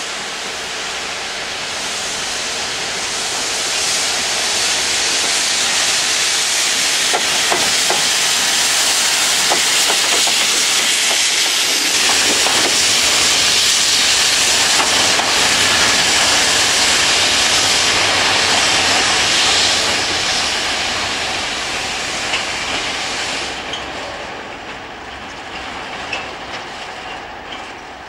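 A rail head treatment train passing, its high-pressure water jets hissing loudly as they blast the railhead clean, over the wagons' wheels clattering on the track. The hiss builds over the first few seconds, holds, then fades as the train moves away.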